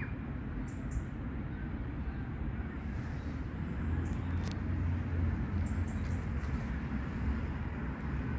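Steady outdoor rumble of wind and distant road traffic, with a deeper low rumble swelling from about four seconds in and easing off near the end.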